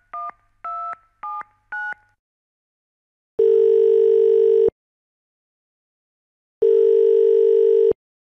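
Telephone touch-tone keypad beeping four times quickly as a number is dialled, then the ringing tone of the outgoing call sounding twice, each ring just over a second long with a pause between.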